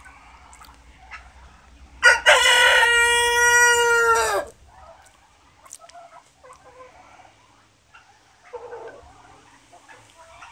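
A rooster crows once, a long call of about two and a half seconds that holds its pitch and drops away at the end. Faint hen clucking follows.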